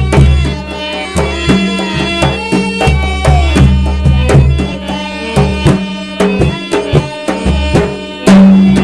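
Rajasthani devotional folk music: a hand drum keeps a quick beat of sharp strokes over steady, sustained instrument tones, with a louder drum passage near the end.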